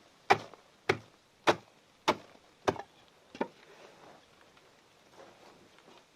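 Wood being chopped: a run of sharp, evenly spaced strokes, about three every two seconds, stopping about halfway through.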